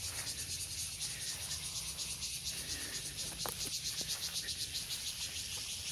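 Insects chirring in a steady, high-pitched chorus that pulses evenly and fast, with a few faint clicks about three and a half to four seconds in.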